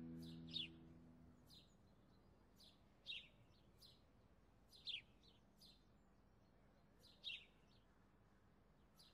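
House sparrow chirping: a string of short single chirps, spaced about a second or so apart. A guitar chord from background music fades out in the first second or so.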